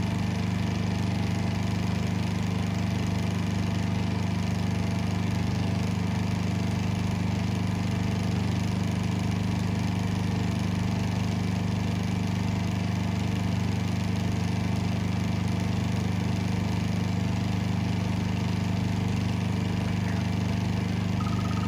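Honda 2000 portable inverter generator running at a steady, even speed, carrying the RV air conditioner's fan before the compressor load comes on.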